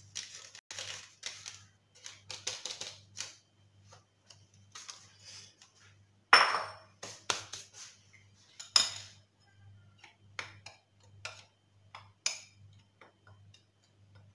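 Kitchen clatter: a paper sachet rustling in the first few seconds, then scattered clinks and knocks of bowls and utensils on a countertop, two of them louder with a short ring about six and nine seconds in.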